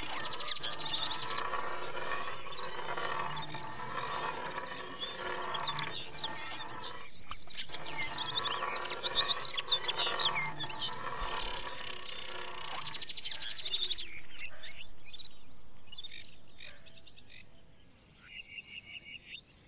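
Birds chirping in a dense chorus, part of a composed soundtrack. It fades out near the end, leaving a few faint ticks.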